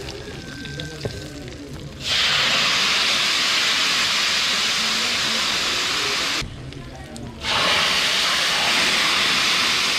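Boiling cooking water poured from a large ladle back into a big pot of rice, splashing with a steady hiss. There are two pours: one starts about two seconds in and lasts about four seconds, then after a pause of about a second a second pour begins.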